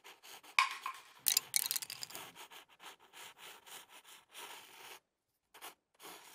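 Pencil scribbling on paper: quick, irregular scratchy strokes, busiest in the first two seconds and stopping about five seconds in, with two last short strokes near the end.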